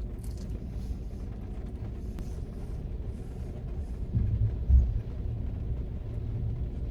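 Thunder rumbling over steady rain on the car, swelling about four seconds in, peaking sharply, then rolling on more softly.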